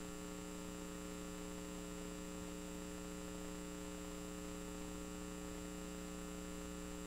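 Steady electrical mains hum with a few higher steady tones over a faint hiss; nothing else stands out.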